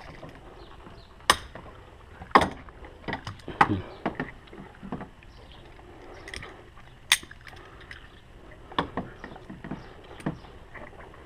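Hand tool clicking and clinking against a metal hose clamp and hard plastic fittings while a coolant reservoir hose is worked loose, with about half a dozen sharp clicks spread irregularly between quieter rustling and scraping.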